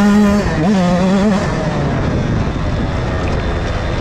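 Husqvarna TC 85's 85cc two-stroke engine revving hard, its pitch rising and falling with the throttle, then dropping to a low, quieter note about a second and a half in.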